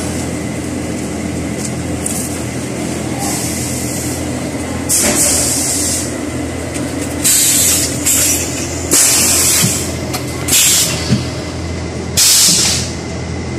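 Steady hum of a keypad-trimming press and workshop machinery. From about five seconds in, about half a dozen short bursts of air hiss come at irregular intervals, each lasting under a second.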